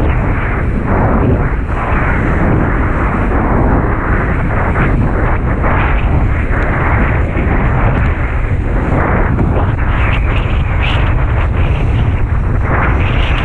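Wind buffeting the microphone, a loud, steady rumbling rush with no letting up.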